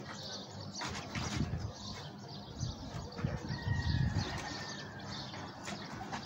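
Tame caller bulbuls chirping in short scattered notes, with one thin held whistle in the middle, over low rumbling bumps that are loudest about four seconds in.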